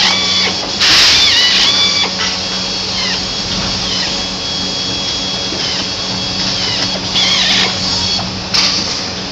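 Air-powered screw gun whining as it drives screws into an RV roof's aluminium edge trim, several runs in a row, its pitch sagging as each screw seats. A steady low factory hum underneath.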